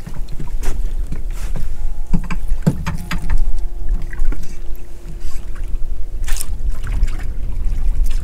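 Small open boat drifting at sea: a steady low rumble of wind on the microphone with water at the hull, broken by scattered knocks and rustles as the rod and gear are handled. A faint steady hum runs for a few seconds in the middle.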